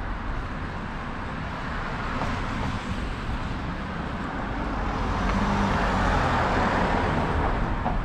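A car driving past on a city street. Its tyre and engine noise grows louder to a peak about six seconds in, then begins to fade, over a steady background hum of traffic.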